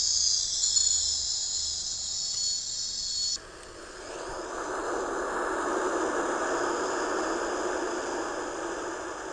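Sharper Image sound machine playing its rainforest track, a high, steady insect chirring. About three and a half seconds in it cuts to the ocean track, a lower wash of surf that swells and then slowly ebbs.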